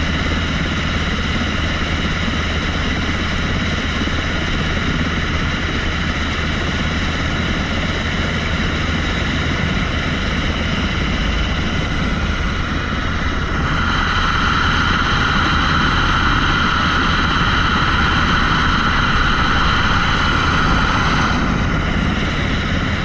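UH-60 Black Hawk helicopter's twin turboshaft engines and main rotor running: a steady turbine whine over a low rotor hum. About halfway through, the whine grows louder for roughly eight seconds, then eases back.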